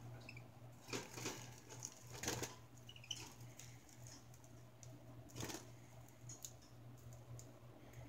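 Pet birds moving about a wire cage: a few faint clicks and scuffles of feet and beaks on wire and feeder cups, the clearest about one, two and five seconds in, over a steady low hum.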